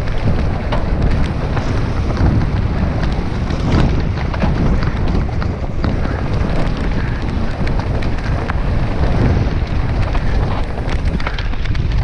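Mountain bike descending a downhill trail: wind buffeting the microphone over a steady rumble of tyres on the dirt, with frequent sharp rattles and knocks from the bike over rough ground.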